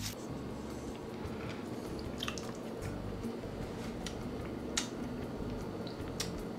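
Faint mouth and spoon sounds of someone tasting soup, a few soft clicks over a low, steady room hum.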